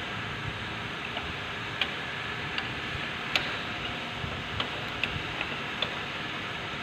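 Wrench clicking on the nuts that clamp a newly fitted blade in a rebar cutting machine as they are turned tight: about a dozen sharp, irregular metal clicks over a steady workshop hum.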